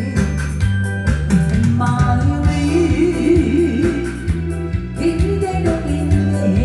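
A woman singing in a thick, husky voice through a stage microphone and PA over a backing track with a steady, evenly repeating bass line.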